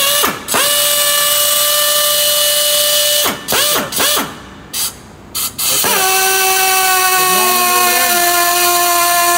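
Air-powered torque wrench running: a steady whine over loud air hiss. It stops about three seconds in, gives a few short bursts, then runs steadily again from about six seconds on, its pitch slowly sinking.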